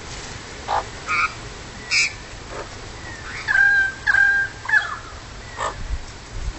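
Magpies calling: a few short, scattered notes, then three similar calls in quick succession about halfway through.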